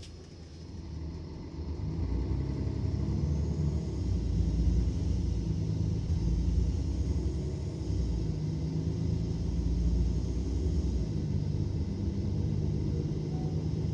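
Mercedes-Benz Citaro O530 city bus diesel engine rumbling, heard from inside the bus; it grows louder about two seconds in, then runs on with a steady low rumble that swells and eases a little.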